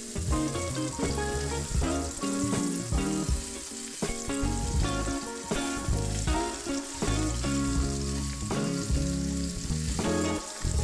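Oil sizzling and bubbling as starch-battered pieces deep-fry in a pan, stirred with chopsticks, over background music.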